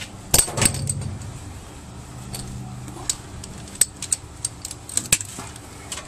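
Sharp metallic clicks and clinks from wire cutters snipping and handling the wiring at a washing machine motor. There are about five separate snaps: two close together near the start, then others about four and five seconds in.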